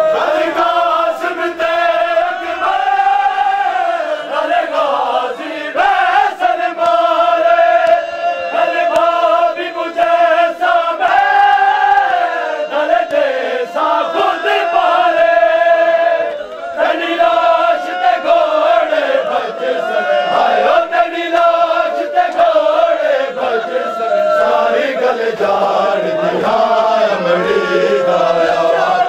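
A group of Shia mourners, all men, chanting a noha (a Muharram lament) together: a continuous melodic chant in phrases, with short breaks between lines.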